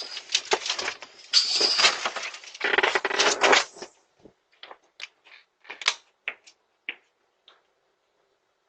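A parcel and mail being handled: rustling and scraping for about four seconds, then a few separate light clicks and taps that die away.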